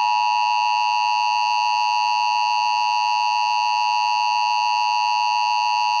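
Emergency Alert System attention signal: the steady, unbroken two-tone alarm that announces an Emergency Action Notification.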